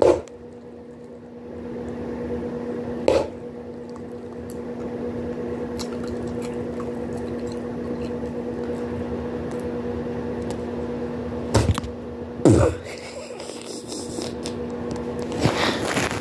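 Bubblegum being chewed with wet, squishing mouth sounds, broken by sharp gum pops: one at the start, one about three seconds in, and two close together around twelve seconds. A steady low hum runs underneath and stops near the end.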